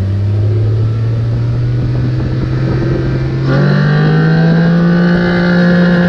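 Fuel-injected dune buggy engine accelerating hard under load. Its pitch climbs slowly, then jumps up about three and a half seconds in and holds steady at higher revs, a little louder.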